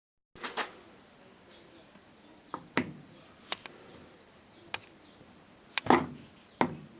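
Sharp, irregular clicks and knocks of hard parts being handled, about eight in all, spaced unevenly with the loudest pair near the end, as in work on a washing machine's plastic casing.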